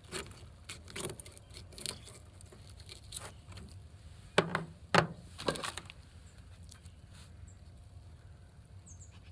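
Fish being filleted with a knife and handled on a ridged plastic truck-bed liner: scattered scrapes and light clicks, with three sharp knocks on the plastic about halfway through, over a low steady rumble.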